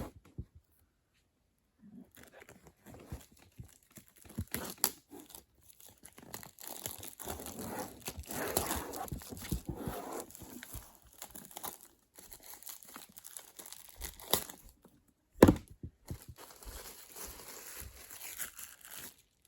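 Plastic wrapping being torn and crinkled off a cardboard headphone box, a long run of crackling and ripping, with one sharp knock about fifteen seconds in.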